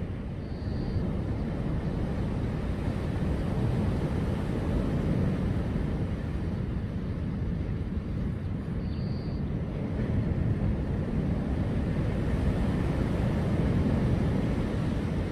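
Sea surf breaking on a sandy beach, a steady low rumble, mixed with wind on the microphone.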